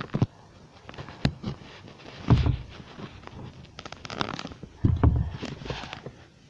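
Rustling and scattered clicks and knocks close to the microphone, in a few short bursts: clothing and phone handling noise as hiders shift about.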